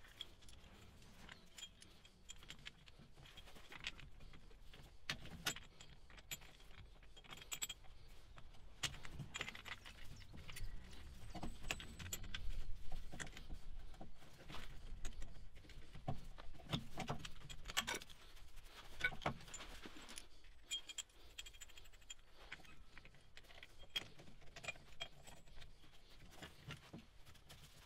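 Faint, irregular metallic clinks and rattles as a brake caliper piston rewind tool is handled and fitted onto a rear brake caliper, the clicks coming most thickly in the middle.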